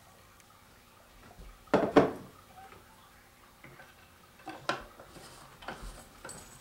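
Two loud clunks of a juice jug and glasses being set down on a kitchen countertop about two seconds in, followed by a few lighter knocks and clinks as the glasses are handled.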